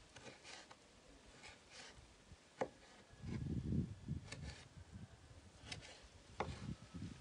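A kitchen knife cutting vegetables on a cutting board by hand: irregular faint cuts and dull thuds, with a couple of sharper knocks of the blade on the board.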